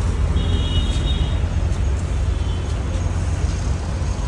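Steady low rumble of nearby road traffic and vehicles.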